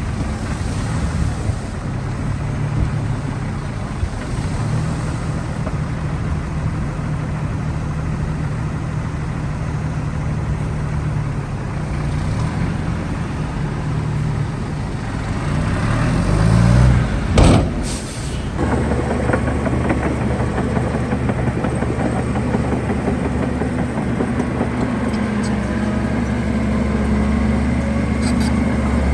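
Diesel engines of heavy earthmoving machinery (bulldozer and dump trucks) running steadily. About two-thirds of the way through there is a short, loud hiss-like burst, after which the engine settles into a steadier, deeper drone.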